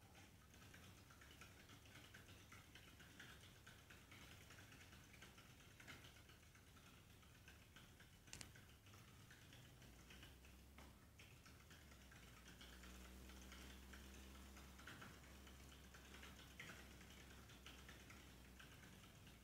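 Faint, rapid small clicks and ticks of a hamster moving in its plastic exercise wheel, with one sharper click about eight seconds in.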